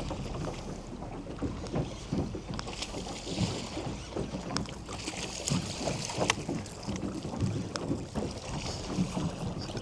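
Wind on the microphone and water lapping against a small boat, with scattered light clicks and knocks.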